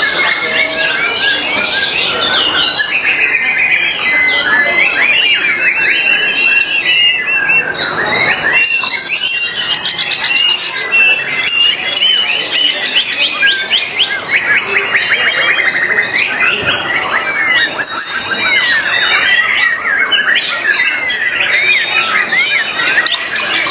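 White-rumped shama (murai batu) singing a long, unbroken, varied song of rapid trills, chirps and sweeping whistled notes.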